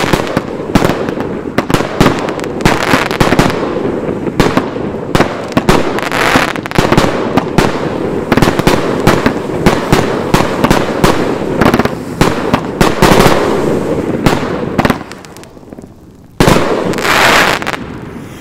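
Outbreak 51-shot XL aerial finale set firing: a dense, rapid barrage of loud aerial shell breaks, boom after boom. The barrage eases off near the end, followed by one last big break.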